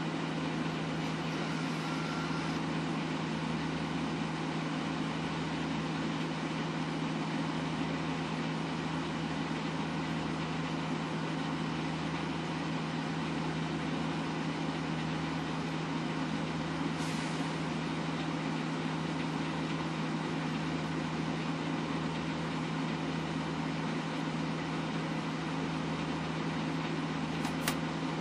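Vehicle engine idling, heard inside the cab: a steady hum with a low throb that pulses slowly, about every second and a half. There is a faint click about 17 seconds in and another near the end.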